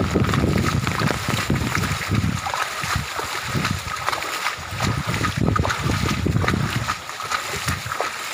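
Shallow floodwater rushing across a path, with irregular splashing and low rumbles as someone wades forward through it.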